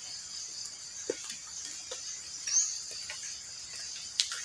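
Steady high-pitched insect chorus of crickets, with a short rising chirp about two and a half seconds in and a few faint scattered ticks.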